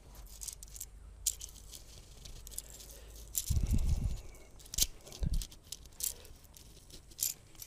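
Scattered light metallic clicks and clinks, with a heavier dull knock about three and a half seconds in, as a roller bearing is worked by hand onto the pinion shaft of a front-axle main gear set. The press fit is too tight, and the bearing won't slide on and seat.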